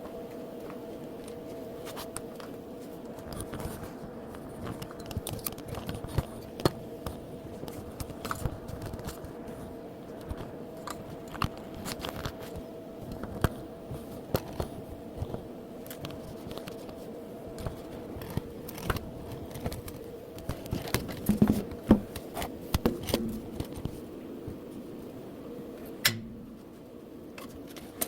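Irregular sharp clicks, taps and scrapes of hand work on metal, over a steady machine hum carrying two held tones.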